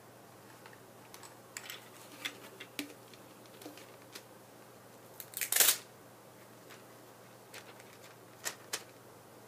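Small plastic craft-kit pieces being handled and fiddled with: scattered light clicks and taps, with a louder rustling knock about five and a half seconds in.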